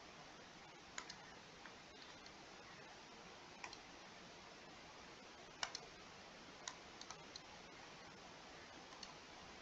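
Near silence with a few faint, scattered computer mouse clicks, most of them in the second half.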